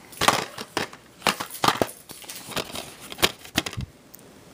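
Handling noise from a handheld camera being moved about: a run of irregular rustles, clicks and knocks close to the microphone, dying away near the end.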